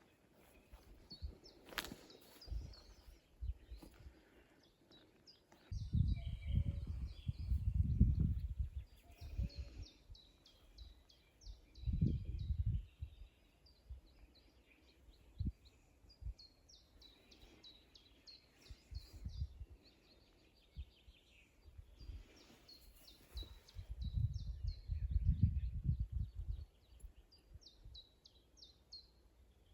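Small birds calling in quick runs of short, high chirps, broken by bursts of low rumble, loudest about six to nine seconds in, again around twelve seconds and around twenty-four to twenty-six seconds.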